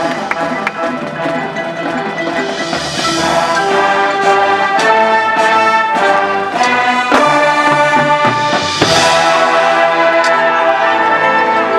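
Marching band playing: the brass section holds loud chords that change every second or so, with percussion hits and two swelling cymbal rolls, about three seconds in and about nine seconds in.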